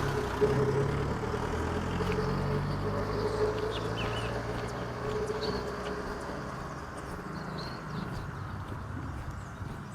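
A motor vehicle's engine running, its hum fading away over the first five or six seconds, with birds chirping from about three seconds in.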